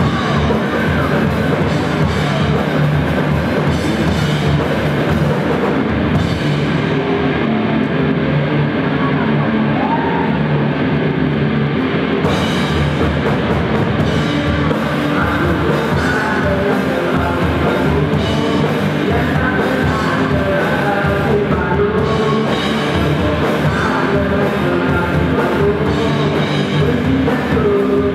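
Live rock band playing loud: electric guitars, bass guitar and a drum kit.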